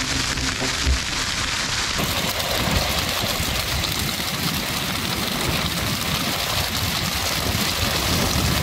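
Burning sugar cane: the steady roar and dense crackle of flames through the cane, with a loud low pop about a second in.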